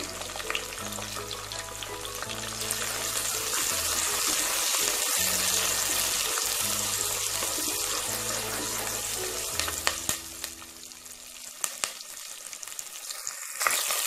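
Shallots, crushed garlic and curry leaves sizzling in hot sesame oil, stirred with a wooden spoon, with a few clicks of the spoon. The sizzle is strongest in the middle and dies down after about ten seconds.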